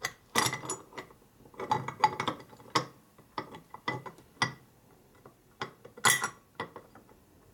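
Irregular metal clicks and clinks from a Harley shovelhead rocker arm and its shaft being worked by hand in the rocker box, while he tries to free a rocker shaft that is stuck tight. The clinks come in clusters, loudest about half a second, two seconds and six seconds in.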